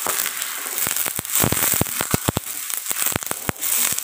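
Curry paste and oil in a hot steel wok sizzling hard, with freshly added coconut milk, and spitting with many sharp crackles while it is stirred with a wooden spatula.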